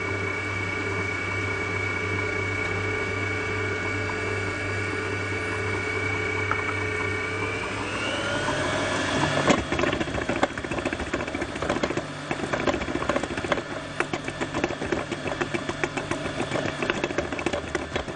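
Kenwood Chef XL stand mixer running, beating eggs into choux dough. Its motor hums at a steady pitch, which rises about eight seconds in. From then on a fast, irregular rattle runs over the hum.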